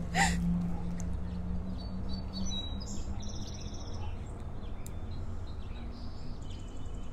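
Small birds chirping: short runs of rapid high notes, one cluster around the middle and another near the end, over a low background rumble.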